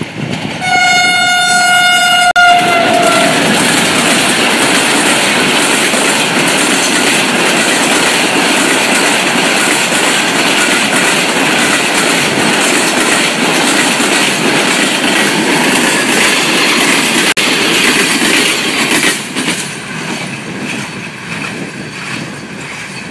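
A diesel locomotive's horn sounds one held note for about two seconds, dipping in pitch as the locomotive passes close by. The express's coaches then rush past at speed, with a loud rushing noise and the rapid clatter of wheels over rail joints. Near the end the noise fades as the last coach draws away.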